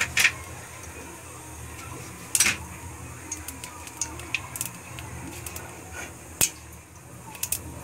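Whole cumin seeds crackling in hot refined oil in a stainless steel pot: irregular sharp pops, a second or so apart, over a faint steady hum, the spluttering of seeds tempered in oil that is already hot.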